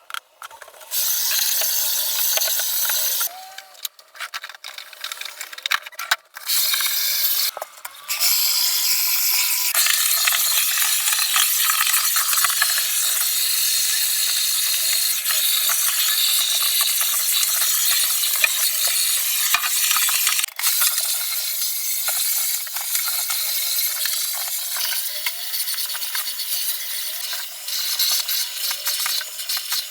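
Vacuum cleaner running with a steady suction hiss, cutting out or dropping sharply a few times in the first eight seconds, then running on without a break.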